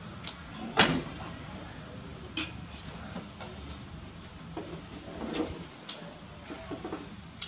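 A handful of sharp knocks and clinks of hard objects being handled. The loudest comes about a second in, and a ringing clink follows about two and a half seconds in.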